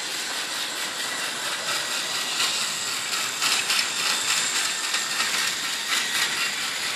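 Battery-powered TrackMaster toy tank engine (a repainted 2012 Thomas) running along plastic track pulling coaches: a steady whirr of its small motor and gears with fine rapid clicking from the wheels on the track.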